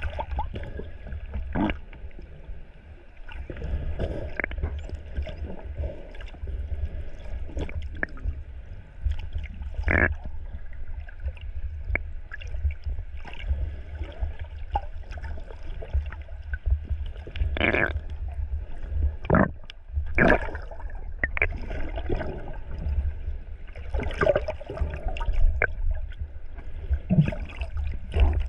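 Underwater sound picked up by a camera just below the sea surface: a steady low rumble of moving water, with gurgles and irregular sharp pops scattered through it.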